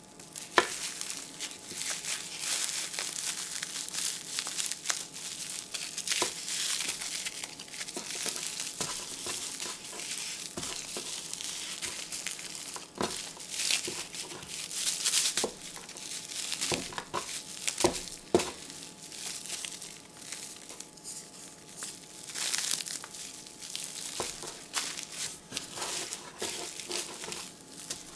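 Plastic cling wrap crinkling and rustling as it is rolled tightly around a chicken breast and its ends are twisted, with many short sharp crackles.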